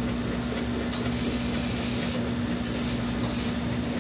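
Steady machine hum with a constant low tone, and a few soft hissing spurts of hot fudge being squeezed from a squeeze bottle, one about a second in and shorter ones near the end.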